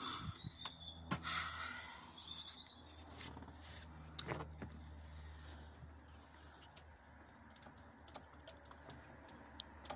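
Light metallic clicks and clinks of hand tools and loosened nuts being worked on a cast exhaust manifold, with brief scrapes early on and quicker small clicks in the second half, over a low steady hum.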